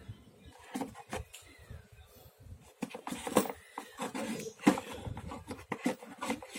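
Steel sockets and tool pieces from a socket set clicking and knocking as they are handled, in scattered light clicks.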